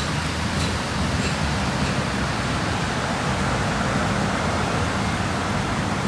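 Steady outdoor rushing noise with a low rumble underneath, even throughout.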